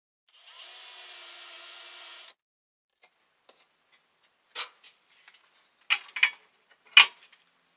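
Cordless drill running for about two seconds as it bores into the clamped wooden box, then a few sharp clicks and knocks, the loudest near the end.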